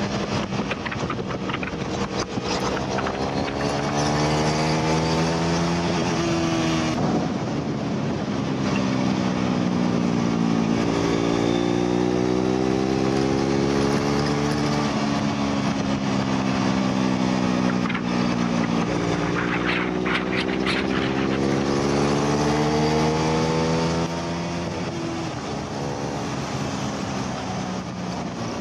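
Onboard sound of a KTM RC390's single-cylinder engine at speed on a race track, over wind rush. The revs climb hard under acceleration and fall away into the corners several times.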